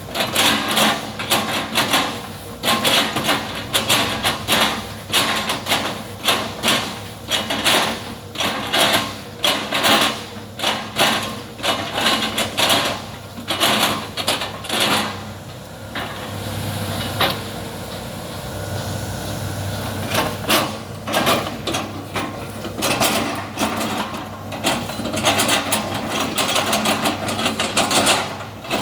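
Excavator at work: a run of sharp, repeated knocks, about two to three a second, over the running diesel engine, as the machine chops oil palm trunks. For several seconds past the middle the knocking stops and the engine runs steadily, then the knocks start again.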